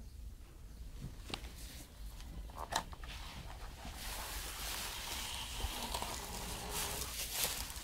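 Sleeping horse snoring: a long, noisy breath starting about four seconds in, after two sharp clicks.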